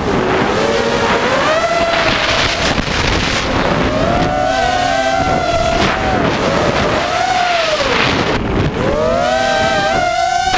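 Brushless motors and propellers of an FPV racing quadcopter (Cobra 2204 1960 kV motors on 5045 bullnose props) whining in flight, the pitch swooping up and down with the throttle through hard turns. Wind rushes over the onboard camera's microphone throughout.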